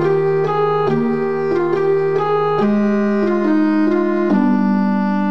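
Instrumental background music: a melody of short notes over long held low notes.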